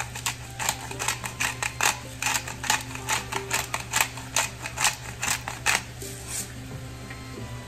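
Hand-twisted pepper mill grinding black pepper: a run of sharp grinding clicks, about three a second, that stops about six seconds in.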